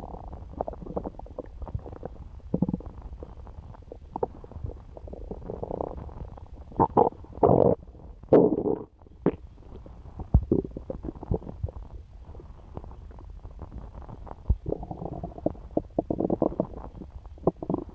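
Human stomach gurgling and rumbling while digesting pizza: irregular bubbling gurgles and little pops, with the loudest rumbles a little before the middle and a run of quick gurgles near the end.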